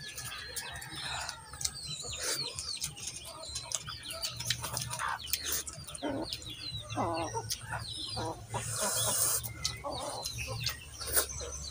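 Chickens clucking in short calls several times, with small birds chirping and light clicks throughout.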